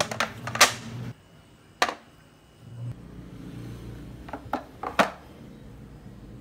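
A bamboo serving tray set down on a countertop, and an enamel mug and a ceramic soup bowl set onto it: a handful of sharp knocks and clinks, a cluster in the first second, one about two seconds in, and another cluster around four to five seconds in.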